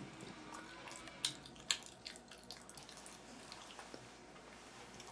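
Faint wet mouth clicks and smacks of someone chewing chocolate, with two sharper clicks close together about a second and a half in.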